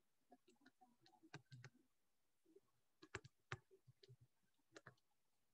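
Near silence broken by faint, scattered clicks and taps from handwriting on a digital whiteboard, a few slightly louder about three seconds in.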